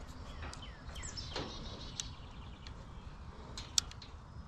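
Faint birds chirping over a low background hum, with a few light clicks and a sharper click near the end.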